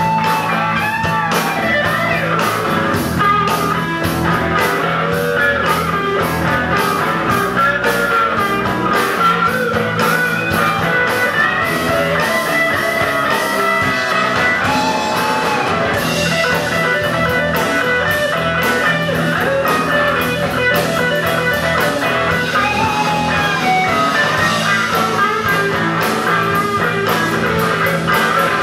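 Live rock-blues band: a Firebird-style electric guitar plays a lead line with bent, wavering notes over bass and a drum kit.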